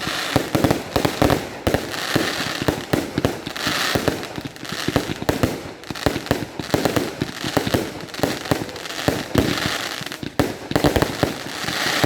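Fireworks going off: a rapid, continuous run of bangs and crackling, several reports a second with no pause.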